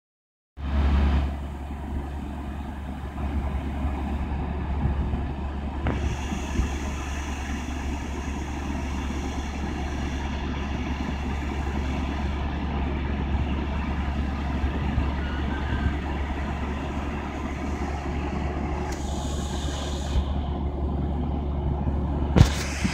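Diesel passenger train standing with its engine idling: a steady low rumble. A short hiss comes in about 19 seconds in, and there is a sharp knock near the end.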